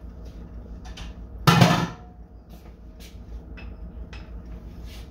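Kitchen clatter: one loud knock about a second and a half in, with a few lighter clicks and taps of utensils around it.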